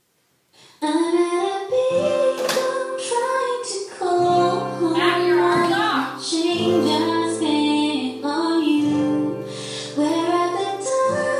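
A young female voice singing a melody over sustained instrumental chords, starting suddenly about a second in.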